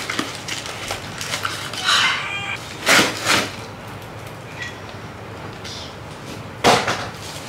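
Bubble wrap and plastic packaging being pulled off a parcel item: crackling and rustling, with brief squeaks about two seconds in and two louder rustles, about three seconds in and near the end.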